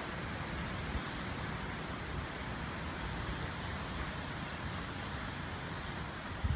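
Steady rush of strong wind, an even noise without pitch.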